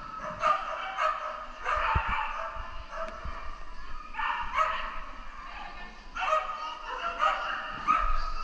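A dog barking in several runs of quick, short barks with brief pauses between them.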